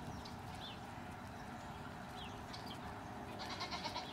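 Oregon Mini geese calling faintly: a few short, high calls, then a brief burst of calls near the end.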